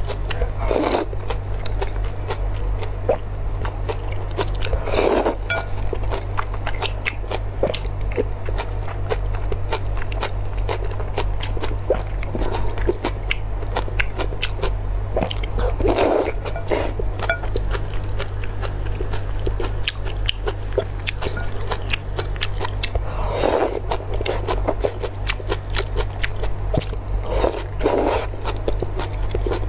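Close-miked eating of noodles in sauce: wet chewing with many small mouth clicks and smacks, and a louder slurp of noodles every several seconds. A steady low hum lies underneath.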